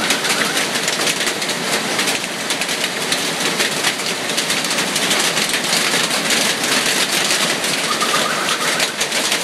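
A hailstorm with heavy rain pelting down: a dense, steady hiss full of small, sharp hits.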